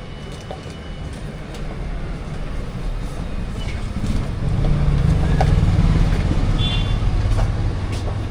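Road traffic: a motor vehicle passing close by, its engine rumble swelling about halfway through and easing off near the end.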